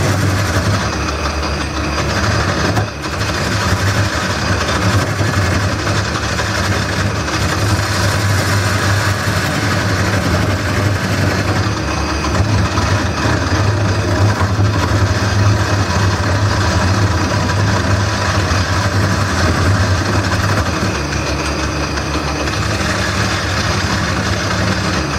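Wood lathe running steadily with a low motor hum while a turning tool cuts into the spinning wooden bowl, giving a continuous rough scraping noise that dips briefly about three seconds in.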